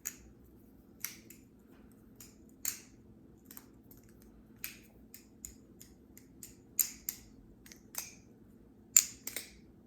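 Theone bamboo-style balisong (butterfly knife) being flipped: its handles and pivot click sharply against each other at irregular intervals, about once a second, with the loudest click near the end.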